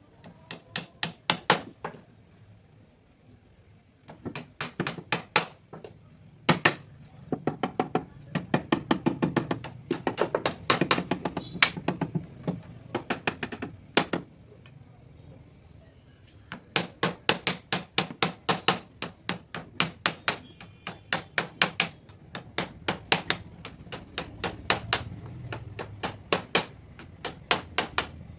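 Rapid runs of hammer blows on wood, several strikes a second, with short pauses between the runs.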